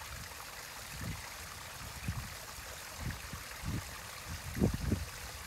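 Steady trickle of running water from a turtle pond's filter, with a few soft, low thumps.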